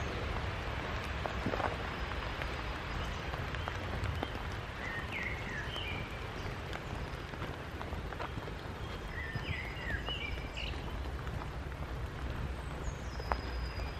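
Woodland birds giving short chirps scattered through, with one high falling call near the end, over a steady hiss and a few faint clicks.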